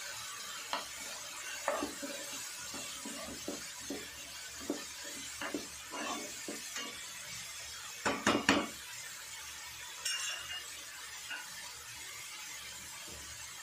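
Metal spoon stirring and scraping onion and spice masala frying in a nonstick pan, with irregular clinks against the pan over a sizzle. A quick cluster of louder knocks comes about eight seconds in, after which only a faint steady sizzle remains.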